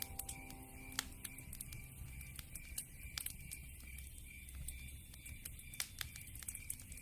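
Wood fire crackling, with irregular sharp pops and snaps. The loudest snaps come about a second in and just before the six-second mark.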